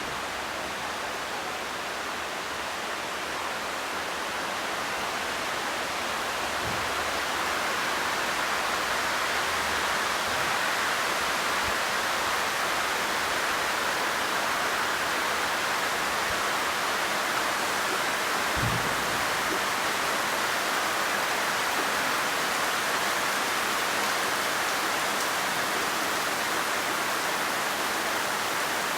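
Heavy monsoon rain falling steadily, a dense even hiss that grows a little heavier over the first several seconds. A few faint low thuds sound through it.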